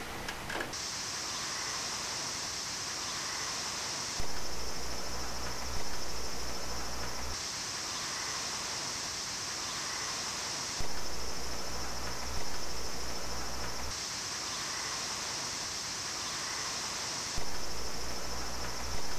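Steady high-pitched chirring of insects, crickets or similar, as outdoor ambience. The recording cuts every few seconds between two microphones, the camera's built-in mic and an Azden SGM-20 shotgun mic. In alternate stretches a low hum comes in, with a few sudden swells that die away over about a second.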